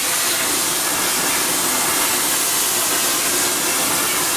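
Plasma torch on a Koike ShopPro CNC plasma table, powered by a Hypertherm Powermax 85, cutting through metal plate: a steady, loud hiss of the plasma arc.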